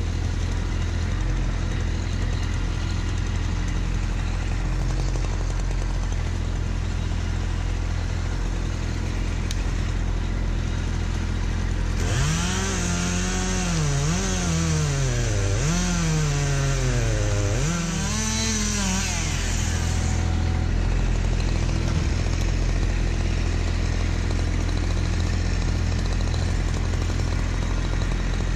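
Kubota B2601 compact tractor's three-cylinder diesel engine running steadily while it works the grapple on logs. From about twelve seconds in, for some eight seconds, a smaller, higher-pitched engine revs up and down about four times over it.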